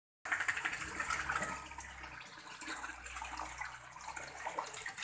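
Tap water pouring into a metal washbasin and splashing around a dog sitting in it, louder in the first second and a half, then softer.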